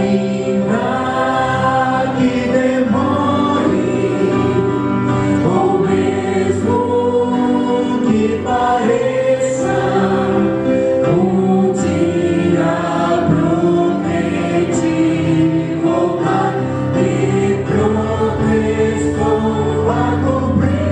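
A small group of men and a woman singing a gospel hymn together into microphones, with long held notes.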